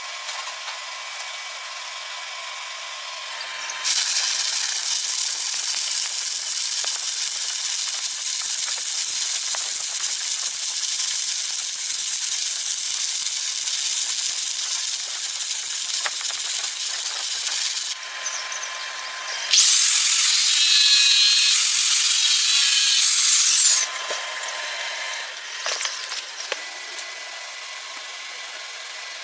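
Welding arc on steel plates hissing and crackling in stretches: it gets louder about four seconds in and runs to about eighteen seconds. A louder stretch of hiss with a high whistle follows at about twenty seconds, and it drops back to a faint hiss near the end.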